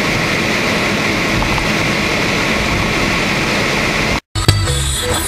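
Steady road and engine noise inside a moving car's cabin, driving through snow. About four seconds in it cuts off abruptly and music with a repeating bass line starts.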